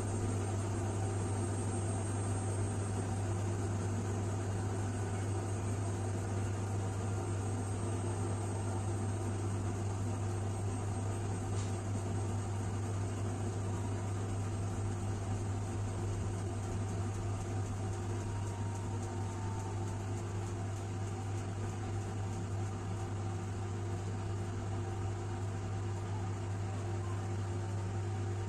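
Washing machine running with a steady low motor hum that does not change.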